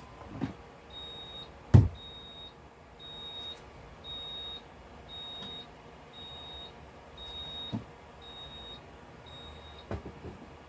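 An electronic timer beeping: short, high beeps about once a second, some nine in all, typical of a resin curing machine's timer signalling that its cycle has finished. A loud knock about two seconds in and a few light clicks near the end.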